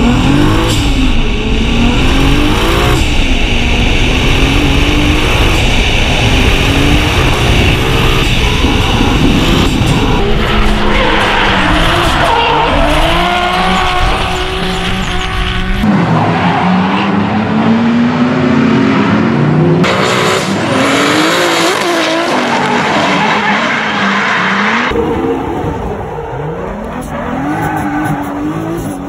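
Nissan Silvia S15 drift car, 2JZ-engined, driven hard: the engine revs up and down in repeated rising and falling sweeps while the tyres squeal and skid. Several short clips are cut together, some heard from inside the cabin.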